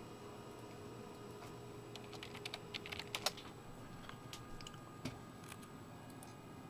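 Computer keyboard typing: a quick run of key clicks from about two seconds in, then a few scattered taps, one of them heavier, about five seconds in.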